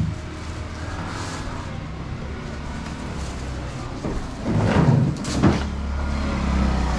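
Knocks and clatter of a plastic crate and boxes being handled off a truck bed, loudest about four and a half to five and a half seconds in, over a steady low vehicle engine hum.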